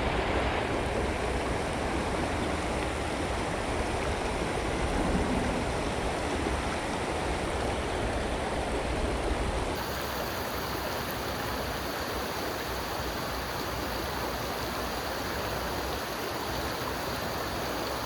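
Steady rush of flowing creek water, with a low rumble under it. About ten seconds in, the sound changes abruptly: the rumble drops away and the hiss turns brighter.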